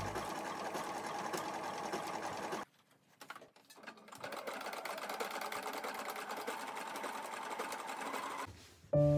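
Electric domestic sewing machine running steadily as it edge-stitches a folded fabric edge, stopping about two and a half seconds in and starting again about a second and a half later, then stopping near the end.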